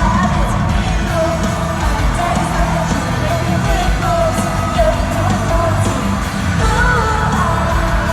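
Live pop music over a concert sound system, heavy bass beat with a woman singing, and audience members yelling over it.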